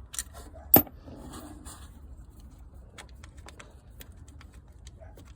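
Scattered light metallic clicks and clinks of a socket ratchet and hand tools backing out the 10mm thermostat housing bolts, with one sharp clink about a second in.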